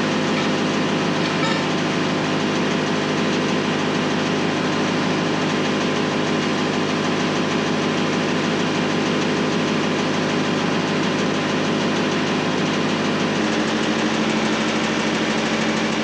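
An engine idling steadily, with a slight change in its note about thirteen seconds in.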